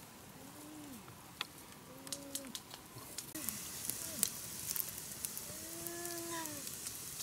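Campfire crackling, with sharp pops that become frequent from about halfway in. Short pitched calls that rise and fall sound several times, every second or two.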